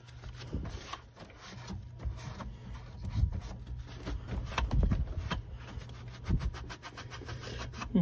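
Damp cloth rag rubbing and wiping over the metal parts and wiring of an air-conditioning air handler, with scraping and a few dull knocks, the loudest about three and five seconds in. A steady low hum runs underneath.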